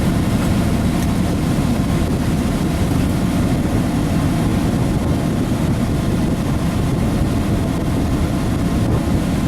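Pickup truck driving, a steady low rumble of engine and road noise heard from inside the cab.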